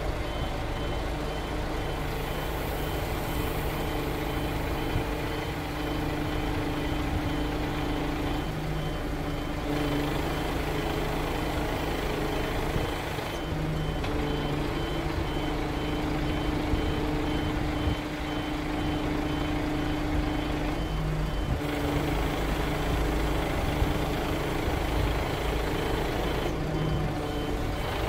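KIA Bongo3 1.2-ton tow truck's diesel engine running with a steady hum whose tone shifts a few times, while a high-pitched warning beeper repeats rapidly.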